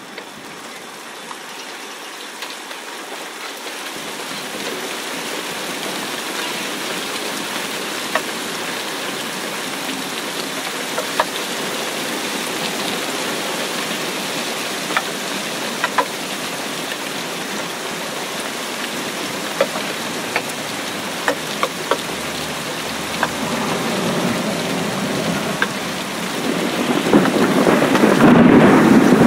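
Rain falling into a puddle of standing water on grass: a steady patter with scattered sharp drip ticks, slowly growing louder. Near the end it swells louder and deeper.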